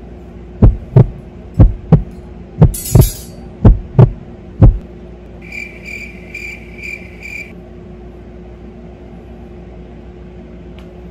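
Heartbeat sound effect: loud, low double thumps in a lub-dub rhythm, about one beat a second, five beats in all. A run of five quick high-pitched beeps follows, over a steady low hum.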